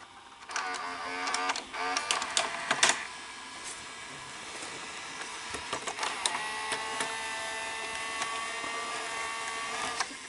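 Sony SLV-R5UC S-VHS VCR's tape transport mechanism running. Clicks and a wavering motor whir come in the first few seconds, then a steady motor whine sets in about six seconds in. The mechanism is gummed up with dried-out lubricant, and a mechanical problem follows: a plastic gear in the cam mechanism turns out to be broken.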